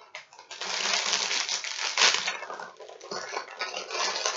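Plastic snack packaging crinkling and rustling as a multipack bag of mini biscuits is handled, a dense run of crackles.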